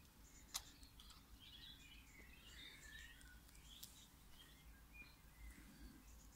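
Faint, scattered high bird chirps, with one sharp click about half a second in.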